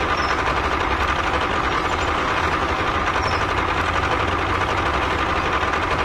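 Tractor engine running steadily at an even speed.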